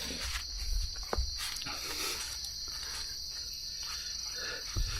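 A steady, high-pitched chorus of insects in the jungle, with a few faint knocks and rustles of movement close by.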